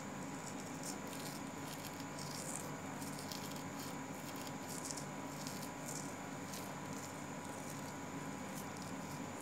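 Steady hiss of a phone microphone with a faint hum, and soft brief rustles or clicks about once a second, typical of the phone being handled close up.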